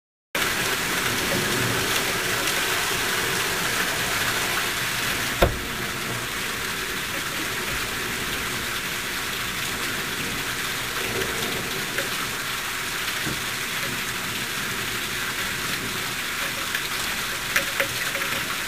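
Rain falling during a thunderstorm, a steady hiss, with a sharp click about five seconds in and a few smaller clicks near the end.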